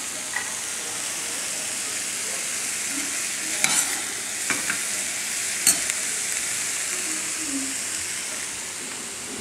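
Green beans and grated coconut sizzling in oil in a stainless steel frying pan, a steady hiss, with fresh curry leaves just added. A metal spatula stirring the pan gives a few sharp clicks against it, around four and six seconds in.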